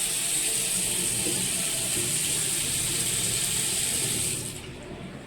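Pressurised water spraying from a plumbing fitting, a steady hiss that stops about four and a half seconds in.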